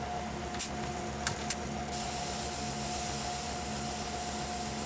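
Tormach PCNC 1100 spindle driving a 3/16 in end mill through aluminium, a steady machining whine over a hum, cutting dry with no coolant running. A few sharp ticks come in the first second and a half.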